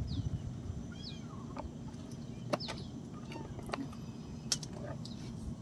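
A bird calling: short whistled notes that fall in pitch, repeated about once a second, with a few sharp clicks in between.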